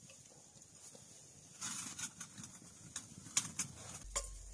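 Pressurised liquid-fuel camping stove being preheated by burning a little of its own fuel: a short rush of flame, then a run of sharp clicks and crackles. Near the end a low steady burner sound sets in.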